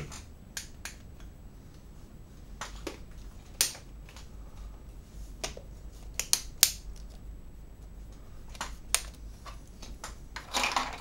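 Irregular sharp clicks and taps, a dozen or so, from controls being pressed while the camera's white balance is adjusted, over a low steady hum; a brief, louder rustle near the end.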